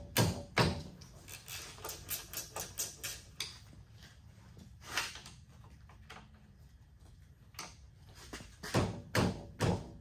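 Hand tools and metal parts clicking, tapping and knocking as the joystick mount of a Kubota SCL1000 track loader is unbolted and handled. The loudest knocks come right at the start and again in a cluster near the end.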